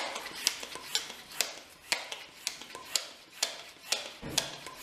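Bicycle hand pump inflating an inner tube through a newly fitted valve, a sharp click on each stroke, about two a second. The tube holds air, so the replacement for a valve that stuck open is sealing.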